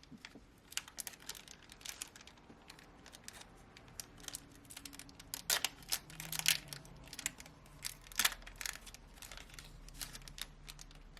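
Foil trading card booster pack crinkling and being torn open: a rapid, irregular run of sharp crackles and clicks, loudest a little past the middle.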